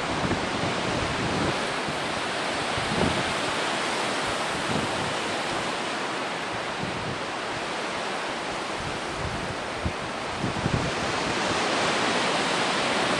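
Steady wind noise, a constant rushing hiss, with a few faint low buffets on the microphone.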